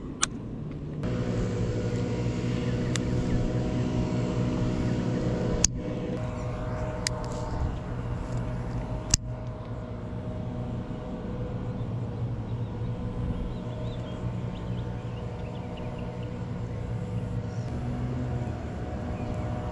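A motor running steadily nearby: a constant, even hum, broken by a few sharp clicks.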